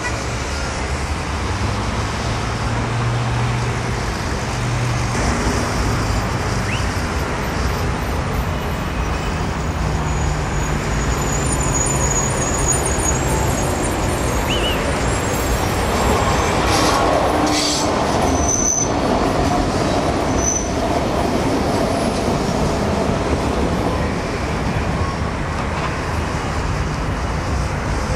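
Electric tram running along its track past the camera, amid steady road-traffic noise from cars and buses. The noise rises slightly past the middle.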